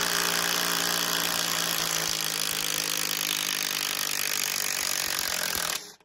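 DeWalt DCF885 brushed impact driver hammering steadily as it backs a half-inch lag bolt out of a 4x6 beam, working hard against the wood. It stops abruptly just before the end as the bolt comes free.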